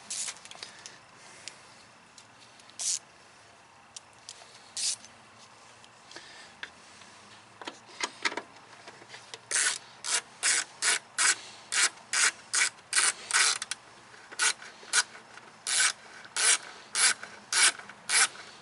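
A few scattered knocks, then the van's turn-signal flasher clicking steadily from about halfway through. The clicks come at about three a second at first and slow to about one and a half a second near 14 s.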